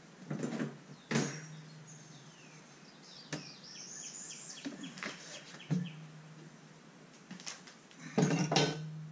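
Engine cowling of a Suzuki DF250 outboard being unlatched and lifted off, with several knocks and clunks, the loudest cluster near the end. Midway a bird chirps a quick run of notes.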